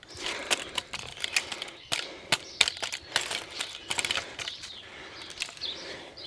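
Irregular light clicks and taps of tools and small metal parts being handled while a motorcycle front wheel is refitted.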